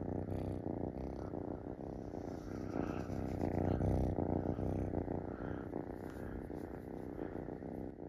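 Munchkin kitten purring steadily, close to the microphone, loudest about halfway through.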